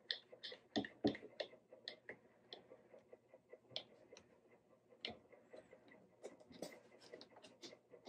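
A one-handed quick-grip bar clamp clicking as its trigger is squeezed to ratchet it tight, clamping a glued cleat across a crack in a guitar top. Short, irregular clicks a few per second, with two louder ones about a second in.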